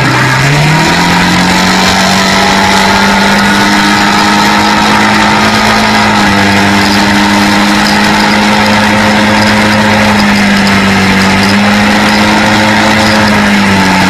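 Quad bike engine running at road speed. Its pitch rises as it picks up speed in the first second, then holds a steady drone.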